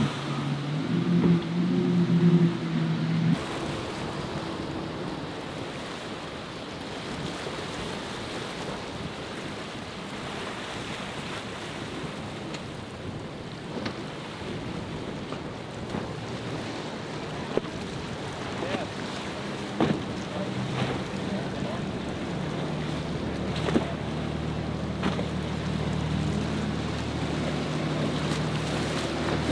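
Outboard-powered center-console boats running through rough inlet waves, their engine drone over a steady wash of surf and spray, with wind on the microphone. For the first three seconds the triple Mercury outboards are loud, then cut off suddenly. The middle is mostly surf and wind with occasional sharp knocks, and another outboard's hum comes back near the end.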